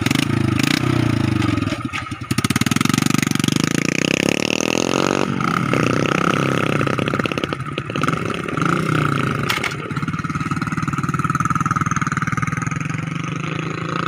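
Small motorcycle engines running close by as loaded bikes ride past one after another, their pitch rising and falling as they pull away.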